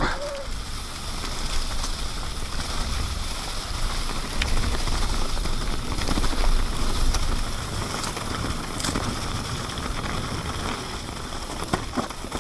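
Mountain bike tyres rolling over wet leaves on a forest trail, a steady hiss, with wind buffeting the helmet-mounted camera's microphone as a low, uneven rumble. A few sharp clicks and rattles from the bike over bumps.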